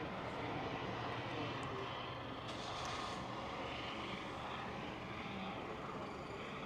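An engine running at a steady low drone, with a constant hum and hiss underneath.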